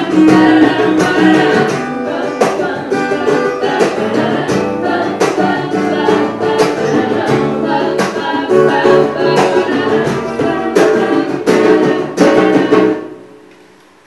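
Live acoustic band: a man singing over strummed acoustic guitar, with a wooden flute playing alongside. About thirteen seconds in the song ends and the last chord dies away.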